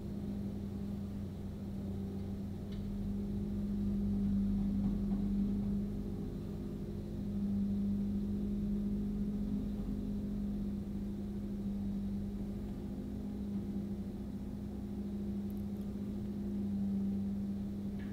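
Engine-driven straw mulch blower running steadily while it blows straw out through its hose: a steady low hum that swells a little now and then.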